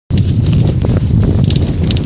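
Opel Kadett 1.3 petrol engine running with a knock: a loud, dense low rumble with irregular sharp ticks on top.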